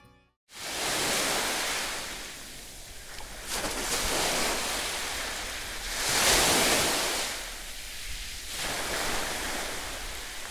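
Sea surf washing onto a beach in slow swells, starting about half a second in, with splashing from a swimmer running out through the shallow water.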